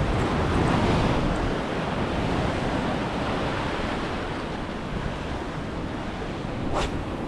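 Surf breaking and washing on the shore, with wind buffeting the microphone; a brief swish near the end.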